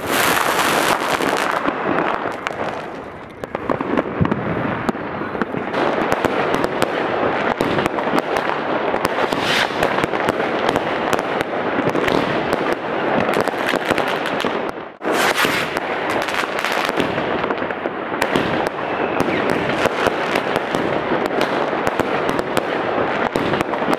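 Many consumer fireworks and firecrackers going off at once: a dense, continuous crackle of bangs and pops, with a brief break about fifteen seconds in.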